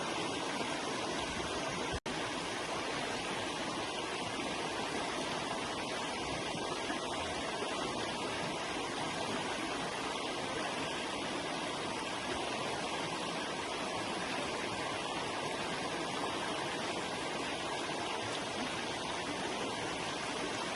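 River water flowing and splashing in a steady, even rush, with a split-second dropout about two seconds in.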